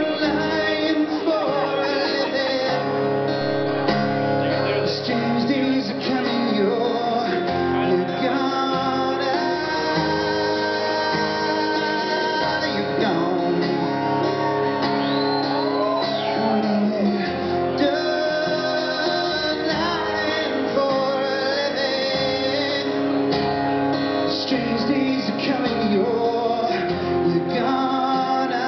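A man singing and strumming a steel-string acoustic guitar in a live solo acoustic performance.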